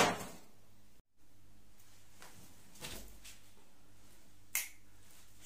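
A few short knocks and clicks over a steady low hum, with a sharp click at the very start and another about four and a half seconds in.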